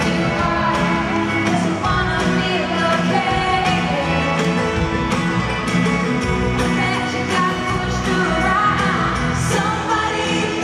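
Live country-pop band playing: a woman sings lead over banjo, acoustic guitars and fiddle.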